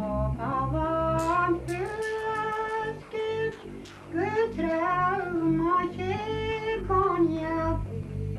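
Soundtrack music: a solo voice singing slow, held notes that slide between pitches over a low, steady accompaniment, with a brief break in the singing about halfway through.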